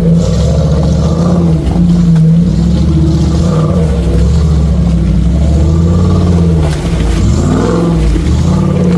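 Off-road 4x4 vehicle engine revving, its pitch rising and falling repeatedly as the throttle is worked, with a sharp drop and climb near the end.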